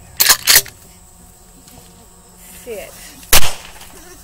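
Gunshots in the open: two sharp cracks in quick succession, then a third, louder and heavier shot about three seconds later.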